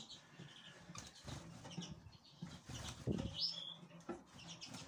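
Small finches moving about an aviary flight: soft knocks and wing flutters as they hop between the perch and the seed feeder, with one short high chirp a little after three and a half seconds.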